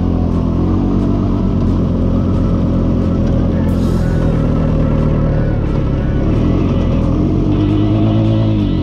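Four-wheeler (ATV) engine running under load in four-wheel drive while ploughing through deep snow, its pitch wandering and rising near the end before dropping off sharply. Music plays underneath.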